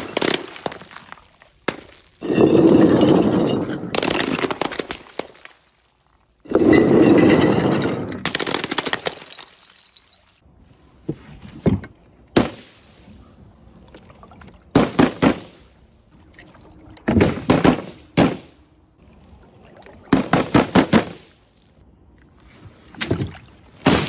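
Glass bottles smashing on a hard tiled floor: three loud crashes in the first ten seconds, each trailing off in a rattle of scattering glass. Then comes a run of shorter drops, balloons bursting against a wooden board, each a quick cluster of sharp slaps and splats.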